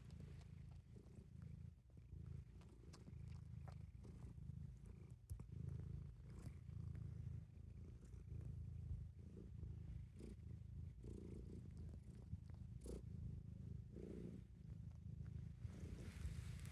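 Cat purring steadily, a low continuous rumble, with a few faint clicks.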